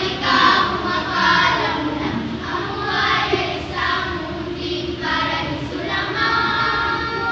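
A group of children's voices performing together in unison, in phrases about a second long with short breaks between them.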